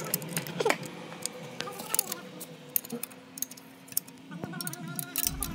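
Irregular metallic clicks and clinks of a spanner working the bolts as an EGR body is fitted to a diesel engine, over a low steady hum.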